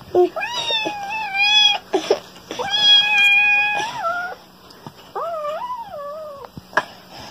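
Small black kitten meowing, three long high calls about a second apart.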